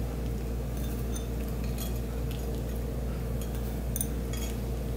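Faint, scattered light clicks and clinks of fingers and peanut bits against a small glass bowl as chopped peanuts are sprinkled by hand, over a steady low hum.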